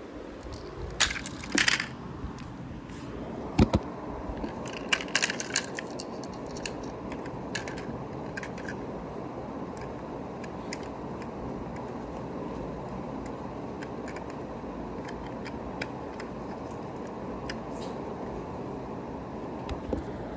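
Small die-cast metal toy vehicles clicking and clattering as they are handled and set in place, with the sharpest knocks in the first few seconds, over a steady background rushing noise that gets stronger about three seconds in.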